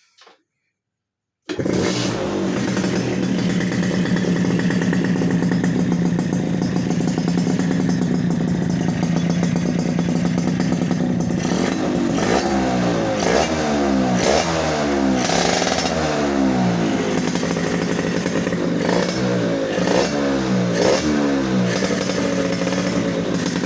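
Modified Tornado GS motorcycle engine, coming in abruptly about a second and a half in and running at a steady idle, then revved up and down repeatedly in the second half.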